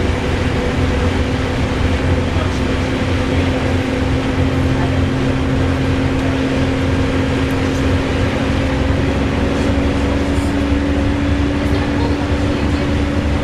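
Wright Gemini 2 VDL DB300 double-decker bus under way, its engine rumbling beneath a loud steady whirring whine that slowly climbs in pitch as the bus gathers speed.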